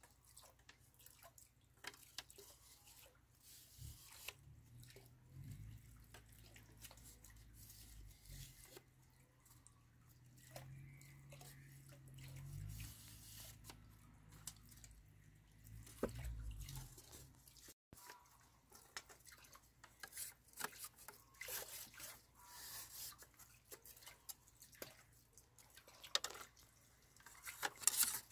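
Thin split bamboo strips clicking, rustling and scraping against each other as they are handled and woven by hand into a flat panel, with scattered light ticks and a few sharper snaps. A low steady rumble underlies the first half and stops a little past halfway.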